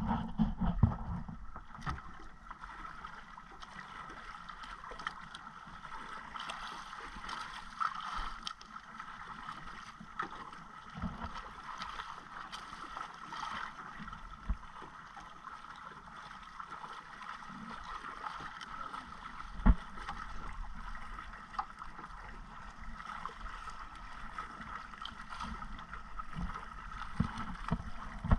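Steady wind and choppy-sea noise around a small outrigger boat at sea, with scattered knocks and bumps, the loudest about twenty seconds in.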